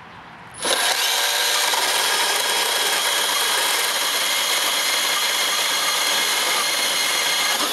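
Makita XGT PB002G 40V cordless bandsaw starting about half a second in and running at top speed while its worn blade cuts through a steel bar. It makes a loud, steady metal-cutting whine with several high tones, and it stops abruptly at the end.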